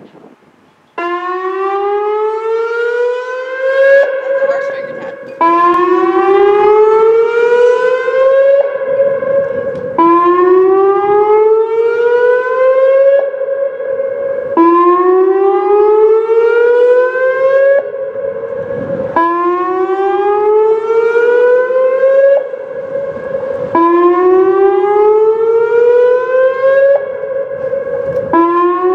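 Whelen WPS-2805 electronic warning siren sounding its whoop signal, the tone for a chemical-release warning, here being tested. About a second in it starts a repeating cycle: a rising sweep of about three seconds, held briefly at the top, then dropping back and sweeping up again about every four and a half seconds. It is very loud.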